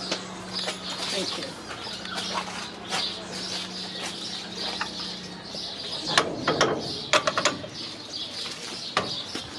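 Birds chirping over a steady low hum that stops about halfway. In the second half, a short clatter of sharp clicks and rattling comes from a metal mesh gate being handled.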